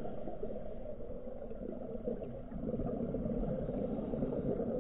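Steady, muffled underwater ambience: a low, diffuse rumble with no distinct sounds in it.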